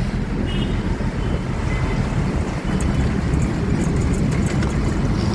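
Steady engine and road rumble heard from a vehicle riding through city traffic, with a brief faint horn beep about half a second in.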